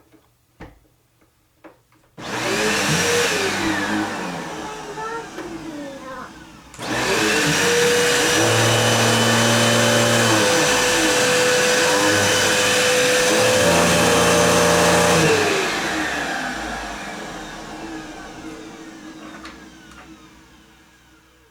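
Bagless vacuum cleaner switched on about two seconds in, its motor whining up to speed. It sags briefly, is switched on again near seven seconds and runs steadily, then is switched off around fifteen seconds and winds down slowly to a stop.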